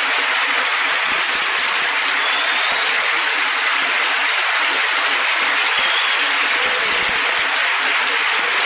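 Large audience applauding steadily and evenly.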